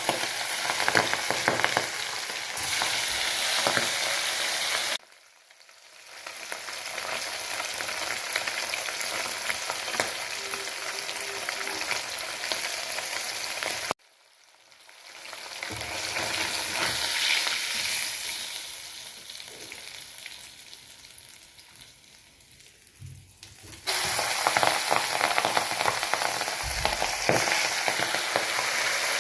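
Battered fish pakoras deep-frying in hot oil with a steady, dense sizzle. The sizzle cuts out abruptly twice, about five and fourteen seconds in, and swells back up each time.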